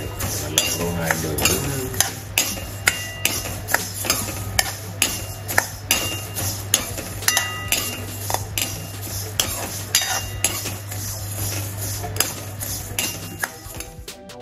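A steel spoon stirring dry-roasting coriander seeds in a steel kadai: the seeds scrape and rattle, and the spoon clinks against the pan about once or twice a second over a steady low hum. Music comes in at the very end.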